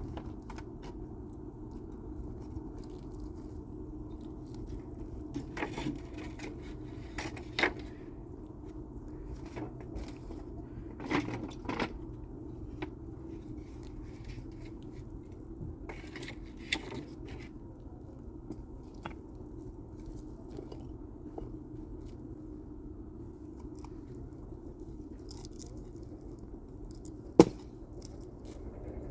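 Scattered clicks and knocks of things being handled, over a steady low hum, with one sharp knock near the end.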